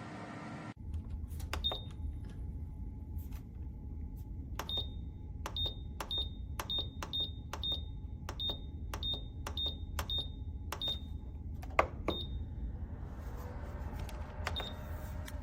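Nuwave Bravo Pro air fryer oven's control panel beeping at button presses: a string of short high beeps, each with a click, two to three a second through the middle, over a steady low rumble from the running oven. One sharper click stands out near the end.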